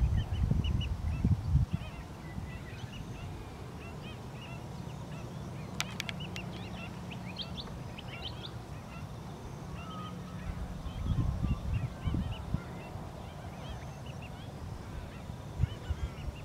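A flock of ducks and other waterbirds calling on a wetland: many short, repeated high-pitched calls overlapping throughout. A low rumble sits under them in the first couple of seconds and again about eleven seconds in.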